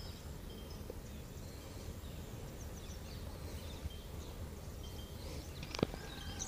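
Quiet outdoor ambience: a low steady rumble with faint, scattered bird chirps, and a single sharp click near the end.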